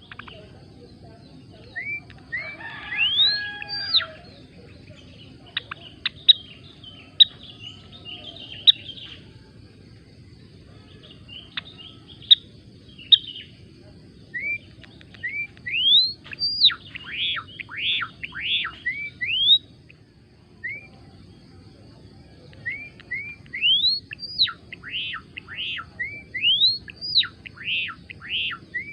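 Gelatik belong singing in repeated bursts of quick, sharply rising and arching whistled notes, with short pauses between phrases. A faint steady background hum runs underneath.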